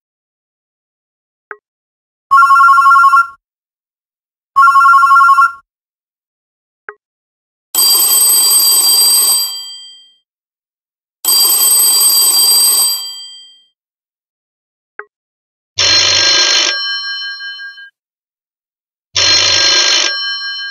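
Phone ringtones played one after another: three different telephone-style ring sounds, each played twice. The first is a steady two-note trill, and the later two ring with fading tails. A short click comes before each new ringtone.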